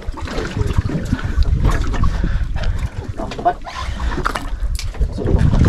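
Wind buffeting the microphone as a low rumble, with repeated short knocks and rustles of handling.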